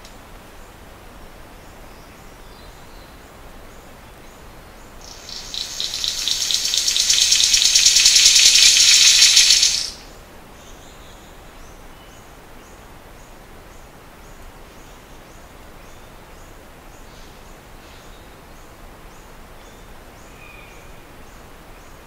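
King of Saxony bird-of-paradise giving one close-up, rattle-like call: a rapid, dry, high rattle that builds in loudness for about five seconds and stops abruptly. Faint, evenly spaced ticking runs underneath.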